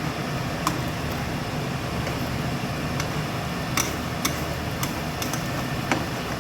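Noodles stir-frying in a pan over a gas burner turned up high: a steady rushing noise, with the spatula knocking against the pan about half a dozen times.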